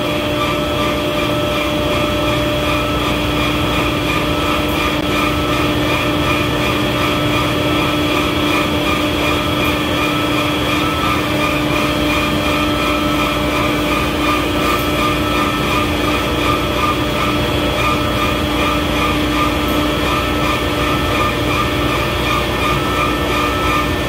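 Trane CVHF centrifugal chiller's compressor running steadily at light load: a constant whine of several held tones over a steady rush. The technician says it is trying to surge at this light load.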